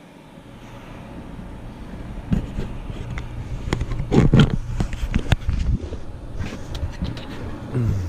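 Knocks, scrapes and rustling of someone moving and handling things at close range, loudest about four seconds in, over a steady low hum from the running geothermal heat pump.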